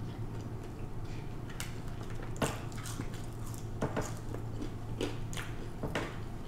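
Close-miked sounds of a person eating french fries: wet chewing and short lip smacks and clicks, scattered irregularly.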